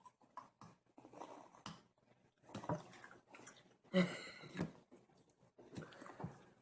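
Plastic wrapping and the cap of a Ramune soda bottle being handled and pulled off: scattered rustles and clicks, with a short squeaky sound about four seconds in.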